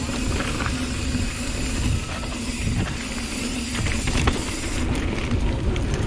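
Hardtail mountain bike rolling down a dirt and gravel trail: wind buffeting the camera microphone as a steady low rumble, tyres crunching over loose ground, and short clicks and rattles from the bike over bumps.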